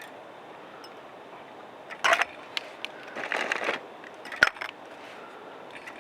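Short scrapes and clicks of things being handled, with one sharp click about four and a half seconds in, over a steady hiss.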